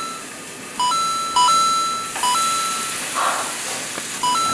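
Electronic beeps, each a short low note jumping up to a higher held note, heard four times. Near the middle comes a brief sizzle of beef frying in hot oil.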